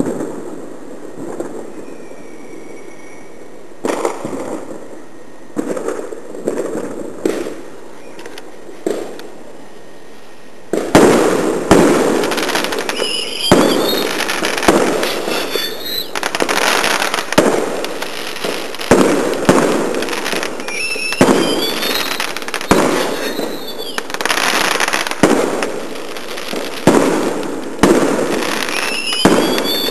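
Fireworks going off. At first there are a few scattered bangs. From about a third of the way in comes a dense run of loud bangs and crackling bursts, with high whistles gliding up and down in pitch several times.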